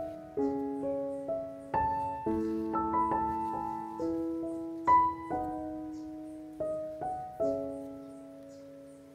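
Background piano music: single notes struck one after another, each ringing and fading, with the last note dying away near the end.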